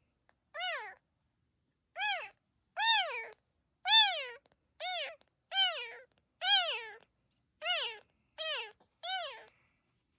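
Very young calico kitten mewing over and over: about ten high-pitched mews, each rising and then falling in pitch.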